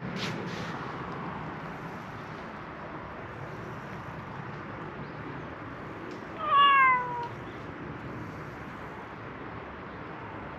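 A cat meows once, about six and a half seconds in: a single short call, under a second long, that falls slightly in pitch.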